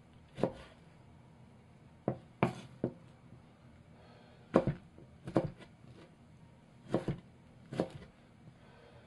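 Kitchen knife chopping okra into rounds on a wooden cutting board: about ten separate knocks of the blade on the board at uneven intervals.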